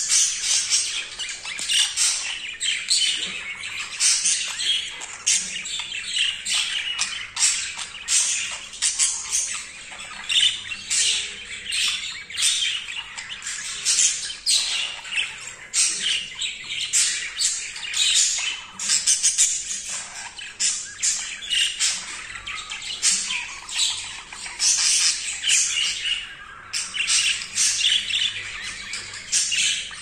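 Budgerigars chattering in a rapid, unbroken run of high squawks and chirps: the excited courtship chatter of a male budgie mating.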